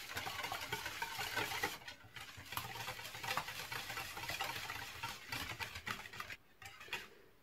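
Wire balloon whisk beating a runny egg, sugar and oil batter in a plastic bowl: a quick, even patter of wires through liquid. It breaks off briefly about two seconds in and stops about six seconds in.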